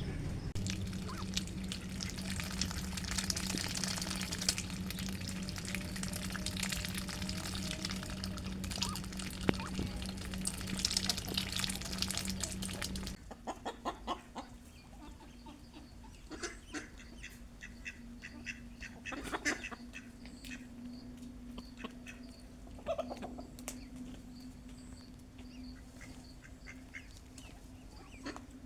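Domestic ducks quacking with chickens clucking, over a steady low hum. About halfway through the sound drops abruptly to a quieter stretch with scattered short calls over a faint steady tone.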